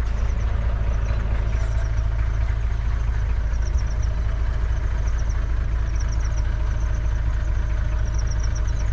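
Safari vehicle's engine running, heard from inside as a steady low rumble. Faint high-pitched chirps come in short runs over it.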